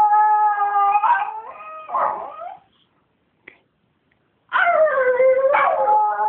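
Miniature schnauzer howling in long, wavering notes, its wake-up call to its owner. Two bouts of howling with a pause of about two seconds between them; the second starts with a howl that slides down in pitch.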